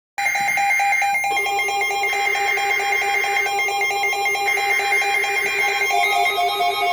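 Electronic ringing tones start abruptly: a fast trill on several stacked pitches, with the upper ones shifting every second or so.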